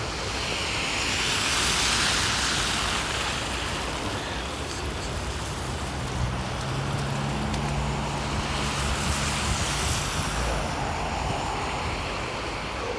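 Road vehicles passing: tyre hiss swells as one goes by about two seconds in and another near the end, with a low engine hum between them.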